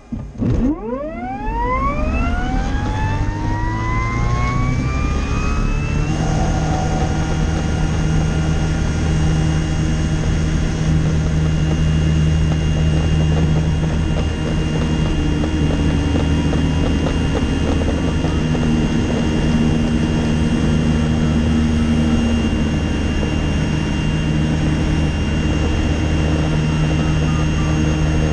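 A self-launching glider's motor starting and spooling up for the takeoff run. Its pitch rises smoothly for about six seconds, then holds as a steady high whine over a low drone.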